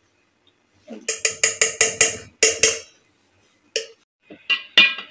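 A metal spoon taps the rim of a stainless-steel grinder jar to knock mayonnaise off it. A quick run of about eight ringing metallic taps comes about a second in, and a few more single taps come near the end.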